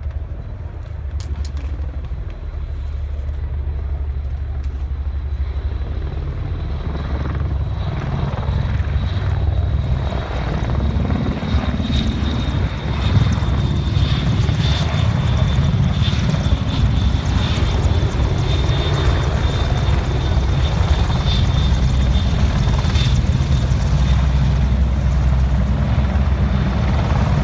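Military helicopter with its rotor blades beating in a low, rapid pulse and a steady high turbine whine. It grows steadily louder as it comes closer.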